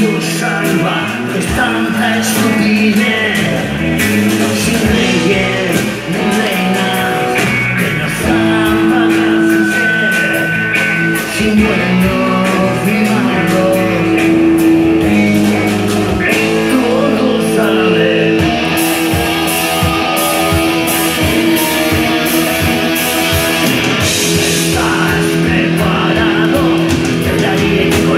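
Rock band playing live: distorted electric guitars, bass and drums, with a voice singing over them. The drums hit harder from about two-thirds of the way through.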